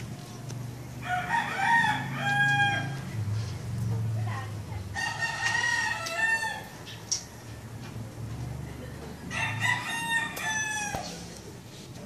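A rooster crowing three times, about four seconds apart, each crow lasting a second or two. A low steady hum runs underneath.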